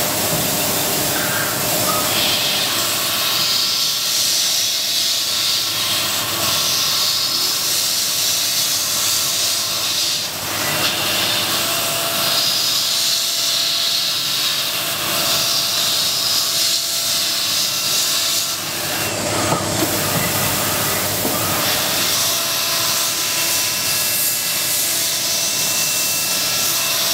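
CNC milling machine's high-speed spindle cutting a plastic eyeglass frame: a steady hissing whir with thin steady whine tones. The cutting hiss eases off briefly about ten seconds in and again around nineteen to twenty-one seconds, then resumes.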